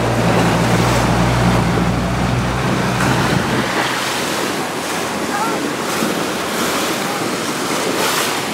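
Yamaha 40 hp outboard motor running with a steady low hum under the wash of sea water and wind on the microphone. The motor's hum drops out about three and a half seconds in, leaving the splashing water and wind.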